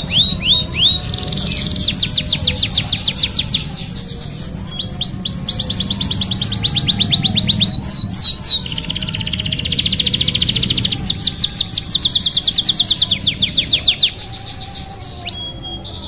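Domestic canary singing a long, unbroken song of rapid trills, one rolling phrase after another, each a fast run of repeated high notes. Near the end it switches to two short held whistles, a higher one and then a lower one.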